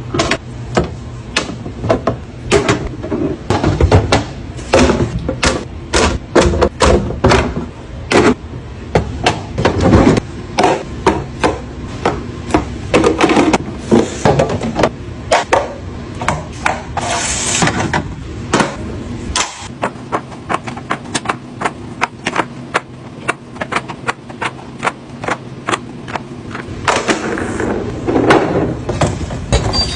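Rapid, irregular clicking, tapping and knocking, several sharp taps a second, from items and containers being handled and set down while stocking a fridge.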